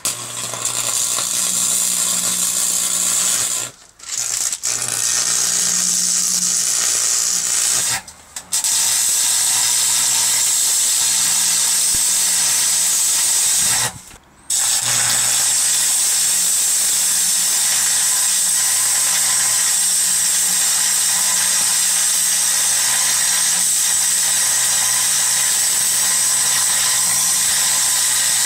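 Arc welding a steel caster onto a steel table: the arc hisses and crackles in long steady runs over a low hum, breaking off briefly about 4, 8 and 14 seconds in and striking up again.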